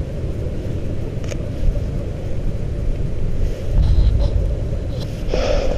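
Steady low outdoor rumble of wind on the microphone and distant city noise, with a few short, irregular crunching sounds, the loudest near the end.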